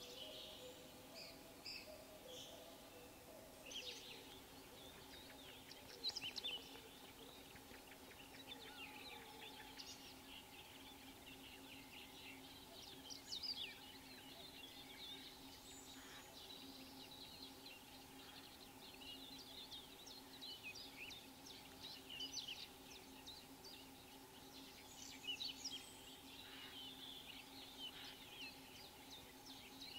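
Faint chorus of songbirds: many short chirps and song phrases from several birds, over a steady low hum.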